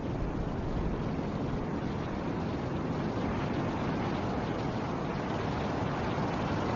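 Steady rush of snowstorm wind, a deep, even noise with no single gusts or other sounds standing out; it brightens a little toward the end.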